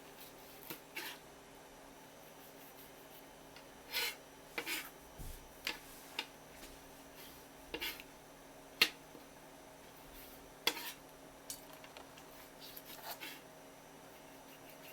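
Kitchen knife and utensils clicking and tapping in scattered sharp strokes as pufferfish is dressed, the loudest about nine seconds in.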